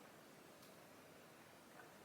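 Near silence: faint room tone with a single faint click.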